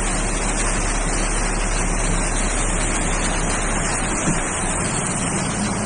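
Steady road and engine noise inside a moving car's cabin, an even rushing with a low hum beneath.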